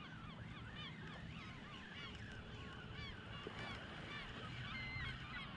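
Faint, continuous calling of a large flock of birds: many short, overlapping calls, too many to count.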